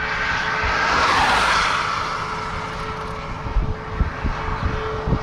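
A vehicle passing on the road with a rising and falling whoosh about a second in, over steady wind noise and a faint steady hum. Wind gusts buffet the microphone with low knocks near the end.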